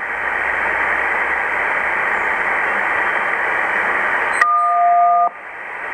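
Shortwave receiver hiss from an Icom IC-718 HF transceiver tuned to an upper-sideband broadcast feed, with no programme audio. About four and a half seconds in, a click and a steady beep of two pitches cut in for just under a second, then the hiss comes back lower.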